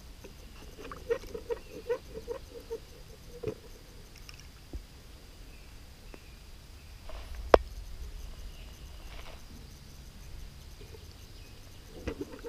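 Gear being handled in a metal ammo can: a quick run of light clinks and rattles, one sharp knock about midway, and a few more clinks near the end.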